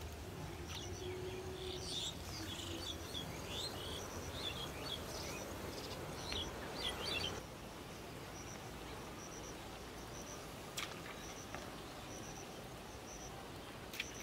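Outdoor wildlife sounds: birds chirping in quick, varied calls that stop abruptly about seven seconds in, over a steady high chirp repeating about every half second and a background hiss.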